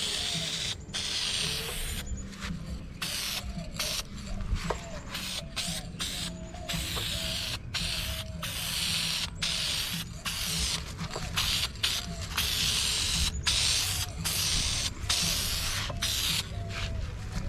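Aerosol spray can hissing in repeated bursts of a second or two, with short breaks between them, over background music.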